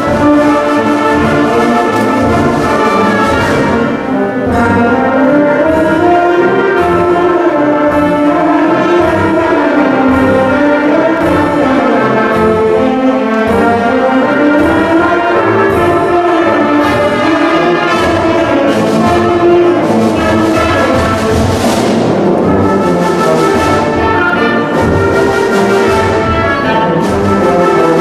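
A concert band of woodwinds, brass and percussion playing a piece. A melody rises and falls in the lower instruments, and cymbal strokes mark the beat, with a bigger crash a little past two-thirds of the way through.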